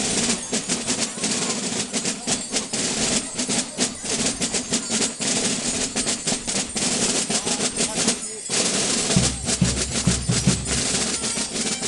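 Carnival street drums playing fast continuous rolls while a line of Gilles dances in place, their belt bells jingling. Deeper drum beats come in about nine seconds in.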